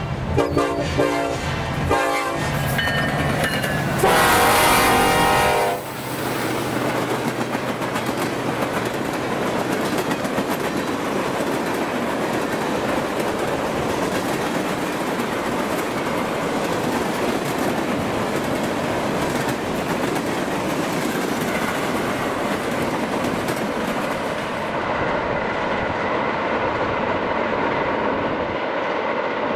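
EMD SD70ACe diesel locomotives passing with engines running and the horn sounding, ending in one long loud blast about four seconds in. After that comes a steady rolling rumble of a long string of tank cars going by on the rails.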